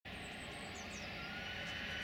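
Airbus A321-211's CFM56 turbofan engines running as the airliner starts its takeoff roll: a steady rush, with a whine that sets in about a second in and a level that rises slightly.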